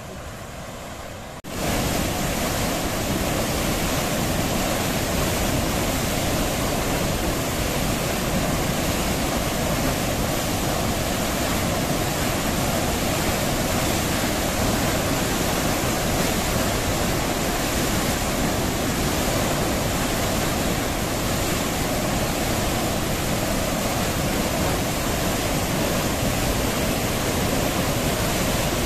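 Dam water let out through an open sluice gate into a canal, rushing in a steady, churning torrent. It gets suddenly louder about a second and a half in, then holds level.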